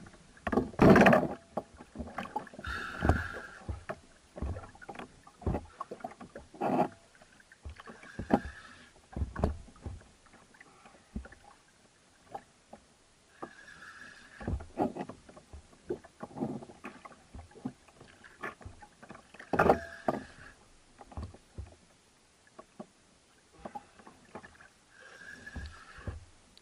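Spinning reel being cranked on a bent jigging rod under the load of a hooked amberjack, with irregular knocks and clicks of the rod, reel and kayak hull. A short rasping burst comes every five seconds or so.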